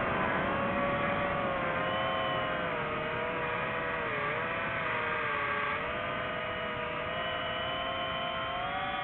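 DJI FPV drone's motors and propellers whining steadily in flight. The pitch sags a little about four to five seconds in and climbs again near the end.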